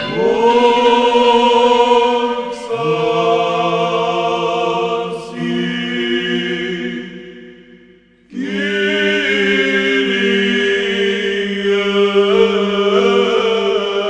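Unaccompanied liturgical chant: voices sing long held notes in two phrases. The first fades out about eight seconds in, and after a brief pause the second begins.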